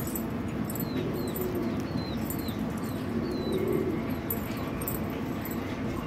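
Pigeon squabs giving short, thin squeaks that fall in pitch, about five of them in the first few seconds, over a steady low background.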